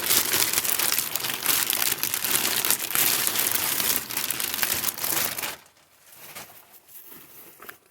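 Plastic packaging bag crinkling and rustling loudly as an item is pulled out of it and handled, dropping to fainter scattered rustles about five and a half seconds in.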